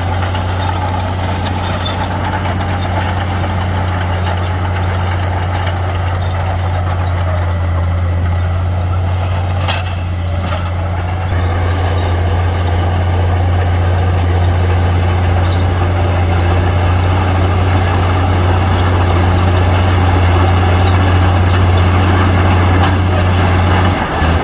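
Heavy diesel earthmoving machinery running steadily, a deep engine hum that grows somewhat louder and harsher about halfway through, as if working under more load.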